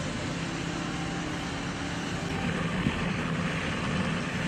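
Road and engine noise inside a moving vehicle: a steady rushing noise with a low engine drone, and a small knock about three seconds in.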